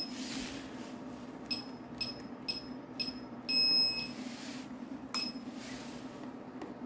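Gotway/Begode MCM5 V2 electric unicycle beeping as its buttons are pressed to toggle shipping mode: four short beeps about half a second apart, then one longer beep, then a click and another short beep about a second later as the wheel is switched off.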